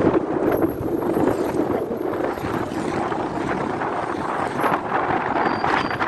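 Motorcycle running steadily along the road, with wind buffeting the microphone.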